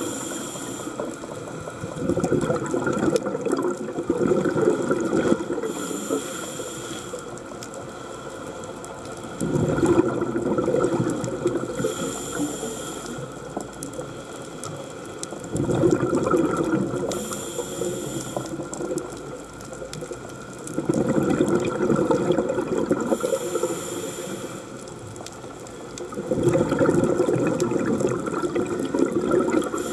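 A scuba diver breathing through a regulator, picked up underwater: a short hiss of inhalation about every six seconds, each followed by a longer low rumble of exhaled bubbles.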